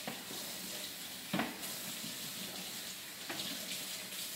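Kitchen faucet running steadily into a stainless steel sink as a plastic bowl is rinsed under the stream, with two short knocks of the dish against the sink.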